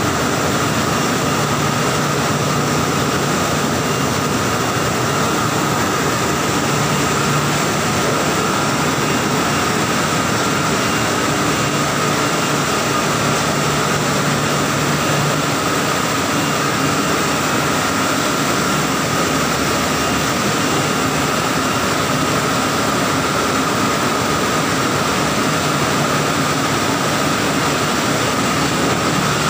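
Banana washing machine running: a steady mix of churning, foaming water and motor hum, with a constant whine over it.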